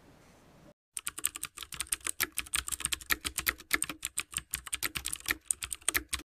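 Computer-keyboard typing sound effect: a rapid, uneven run of sharp key clicks that starts about a second in and stops suddenly near the end.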